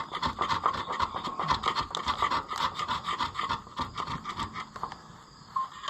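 Hand scraper scraping stuck old gasket material off a Ferguson 30 engine block in quick repeated strokes, several a second, stopping near the end. The gasket is hard-stuck and comes off only in small bits.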